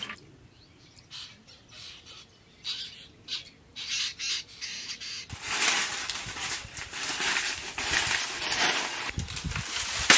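Dry palm fronds swishing and rustling against dry fallen leaves, a loud continuous rustle with repeated surges that starts about five seconds in. Before it there are only faint scattered clicks and rustles.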